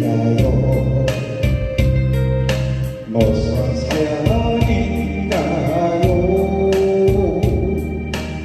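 Music: a Korean pop song sung over guitar and keyboard backing, with a steady beat.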